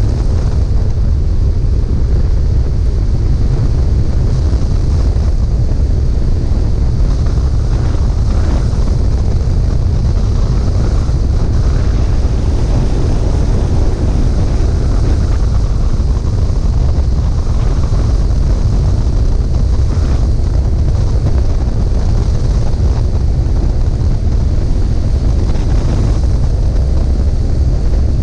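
Steady, loud low rush of wind on the microphone mixed with the noise of the aircraft carrying the camera as it descends on final approach to the runway. The sound stays even, with no distinct engine tone, change or sudden sound.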